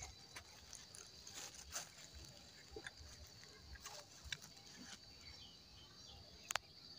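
Faint scattered crackles and rustles of dry leaf litter and fern fronds, with one sharper click near the end, over a steady faint high hum.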